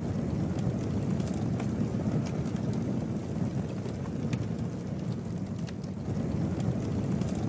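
Campfire burning: scattered sharp pops and crackles over a steady low rumble.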